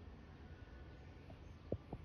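Faint outdoor ambience: a low, steady rumble of background noise, with a couple of soft ticks near the end.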